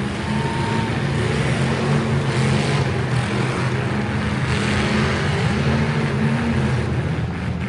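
Demolition derby car engines running loudly together, with a dense wash of exhaust noise.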